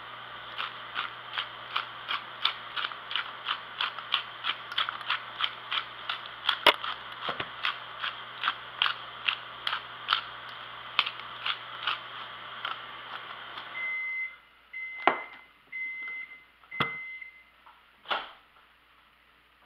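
Hand pepper mill grinding, a ratcheting click about twice a second, over the steady hum of a running microwave oven. About two-thirds of the way through the hum stops and the microwave beeps four times to signal it has finished, followed by a few knocks.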